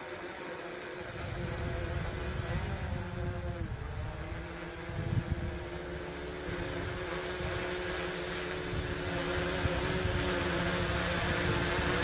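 GoPro Karma quadcopter's propellers humming steadily overhead as it flies closer, the pitch dipping briefly about four seconds in and the sound growing a little louder toward the end. Low gusty rumble of wind on the microphone underneath.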